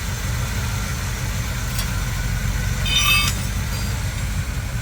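1986 Chevrolet El Camino's engine idling steadily with the air cleaner off, running smooth and not shaking now that its misfire has been fixed. A short high chirp sounds about three seconds in.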